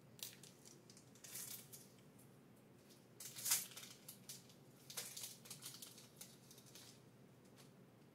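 Foil wrapper of a trading-card pack crinkling and tearing open in several short rustling bursts, the loudest about three and a half seconds in.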